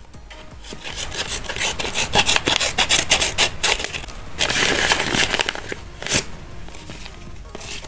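Scissors snipping through a paper bag in a quick run of crisp cuts, followed by a stretch of paper rustling and crinkling as a hand reaches into the bag, with one sharp crackle shortly after.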